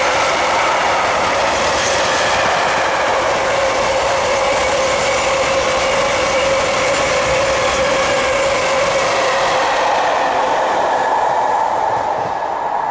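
Freight train of tank wagons rolling past, the wheels running over the rails with a steady high squeal. The sound eases off near the end as the last wagon goes by.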